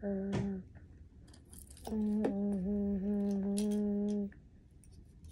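A child humming with the mouth closed: a short stretch that stops about half a second in, then a long held, slightly wavering note from about two seconds in to past four seconds. Light clicks come from handling a tiny toy-gun part between the fingers.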